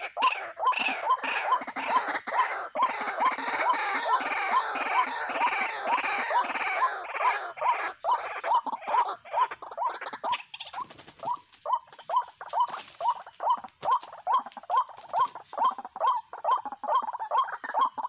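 White-breasted waterhens calling: a repeated harsh 'ruak-ruak' croak, about two to three calls a second, sounding as a dense overlapping chorus that thins to separate calls about halfway through.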